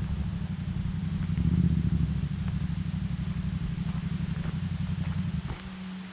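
Motorcycle engine running with a low, pulsing thrum, which drops away sharply about five and a half seconds in.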